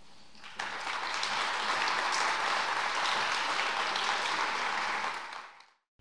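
An audience applauding: many hands clapping, starting about half a second in and fading out near the end.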